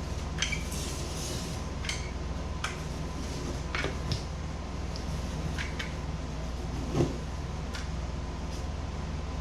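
Scattered light clicks and knocks of hands handling work pieces, over a steady low hum, with a brief rustle near the start and one louder knock about seven seconds in.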